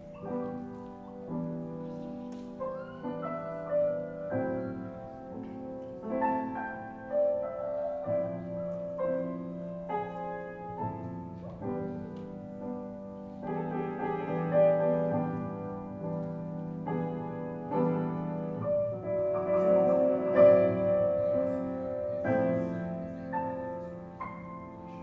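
Jazz ensemble playing, with piano to the fore.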